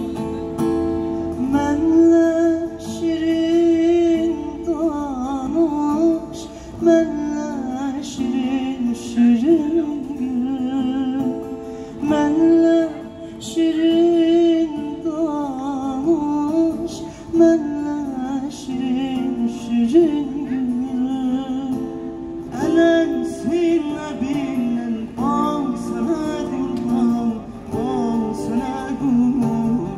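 A man sings an ornamented melody with vibrato into a microphone, amplified through PA speakers, over a plucked acoustic guitar accompaniment.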